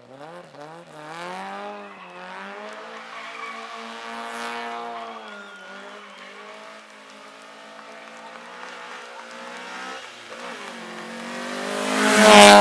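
Opel Ascona rally car's engine revving hard as it slides through a corner, its pitch rising and falling as the driver works the throttle, with tyres squealing. About twelve seconds in, the engine gets much louder as the car passes close by.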